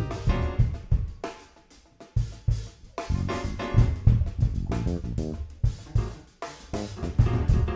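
Jazz piano trio playing, the drum kit to the fore: busy snare, bass drum and cymbal strikes with a short break about two seconds in, over bass and grand piano notes.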